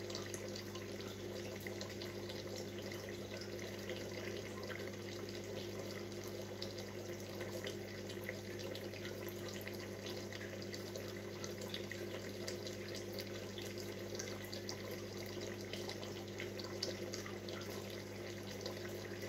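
Aquarium tube filter bubbling and trickling steadily, with fine crackling of small bubbles over a steady low hum.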